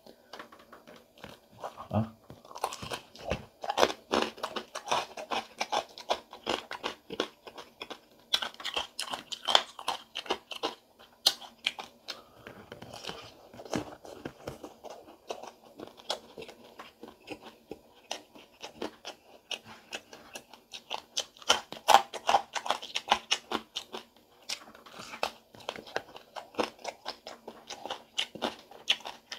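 Close-miked eating of crispy fried pig tail: sharp crunching bites and chewing, a dense run of crackly crunches, with a softer, quieter stretch of chewing about twelve seconds in.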